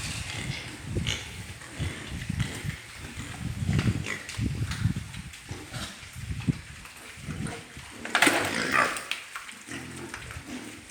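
Pigs grunting over and over in short low pulses, with one loud squeal about eight seconds in.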